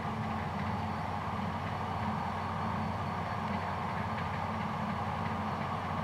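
New Holland CR7.90 combine harvester running steadily under load as it cuts barley: a constant, even mechanical drone.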